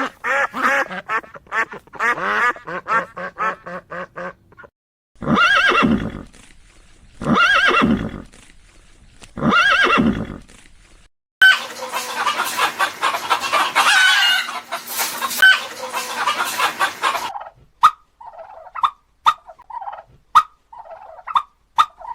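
Animal calls, cut one after another: a fast run of short calls, then three long calls that rise and fall in pitch, then a dense jumble of many calls for about six seconds, and finally scattered short calls.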